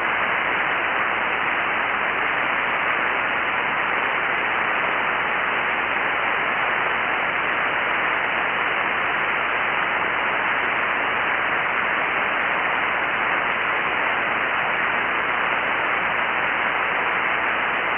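Shortwave receiver hissing with steady static on the 40-metre amateur band in single-sideband mode, with no station transmitting.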